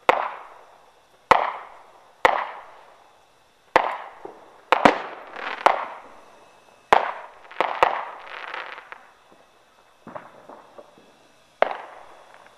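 Fireworks going off: about a dozen sharp bangs at irregular intervals, each trailing away, with a stretch of crackling past the middle.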